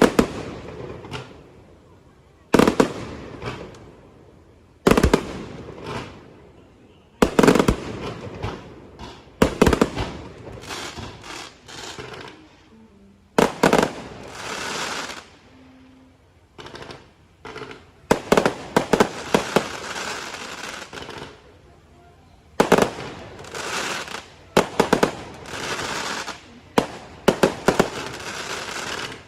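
Aerial fireworks display: shells bursting with loud bangs every few seconds, several followed by crackling and quick runs of smaller reports.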